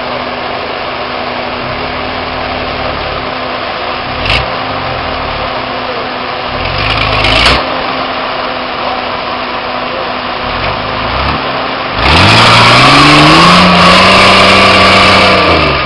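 Nissan Patrol Y60's 4.2-litre diesel engine pulling at low revs with small rises and falls in pitch as it crawls up a steep slope, with a knock about four seconds in. About twelve seconds in it is revved hard, pitch rising and held for a few seconds with the wheels spinning and throwing dirt, then dropping near the end.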